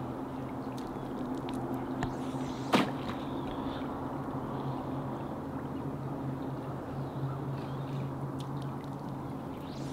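Steady rush of flowing river water with a low, steady hum underneath, and a sharp click about three seconds in.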